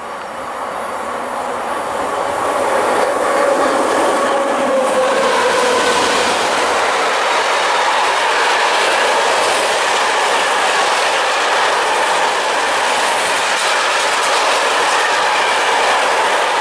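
Electric freight train hauled by SNCF BB 7200-class locomotive BB 7350 approaching and running past at speed. It grows louder over the first few seconds, with a falling whine as the locomotives go by. Then a long string of tank and coil wagons rolls past steadily.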